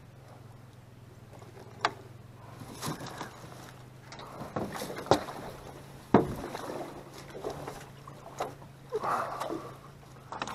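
Aluminium jon boat coming ashore: irregular knocks and clunks from the hull and the gear inside it, the sharpest about halfway through, with scraping between them over a steady low hum.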